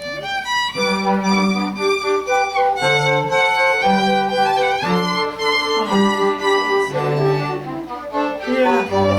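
Classical music on bowed strings: a violin plays a melody of sustained notes over lower held notes from a deeper string instrument.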